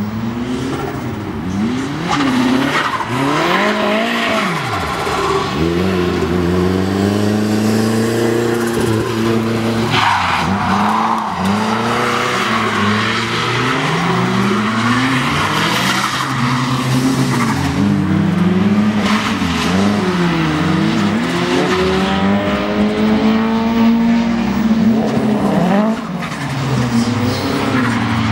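Drift cars sliding through corners: engines revving up and down over and over as the throttle is worked, with tyre squeal and skid noise from the spinning rear tyres, which gets sharply louder about ten seconds in.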